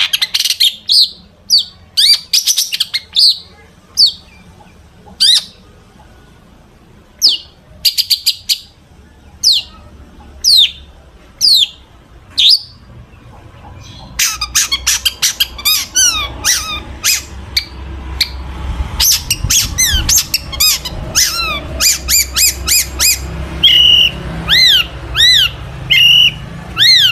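Long-tailed shrike (cendet) singing loudly, its song full of notes mimicked from other birds. First come spaced, sharp calls that drop in pitch. From about halfway it breaks into a fast, dense chatter and repeated arched whistles.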